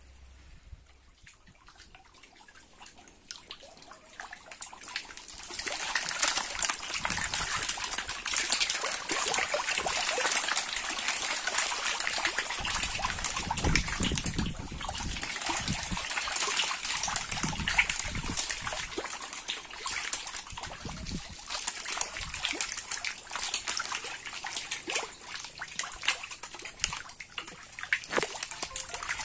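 Water splashing and churning at the surface of a biofloc fish tank, starting about five seconds in and then going on steadily as a dense spatter of small splashes.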